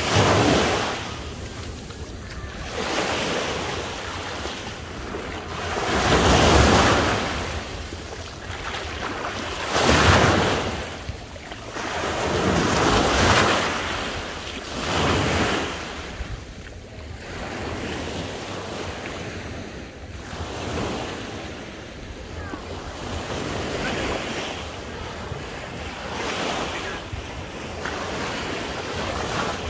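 Sea waves breaking and washing on the shore, each swelling and falling back over a few seconds; the swells are biggest in the first half, then settle into a more even wash.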